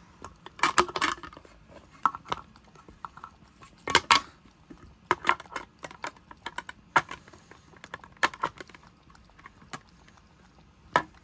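Cat lapping water from the stainless-steel tank of a pet water fountain: irregular wet clicks about three a second, with a few louder knocks.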